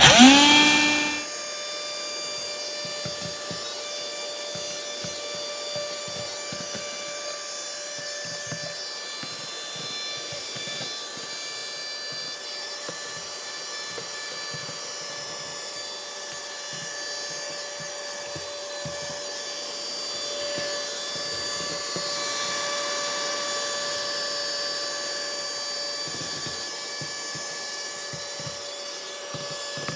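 Small handheld vacuum cleaner switching on with a rising whine as its motor spins up, then running steadily with a high whine while it is passed over the grassed embankment, sucking up loose static grass fibres.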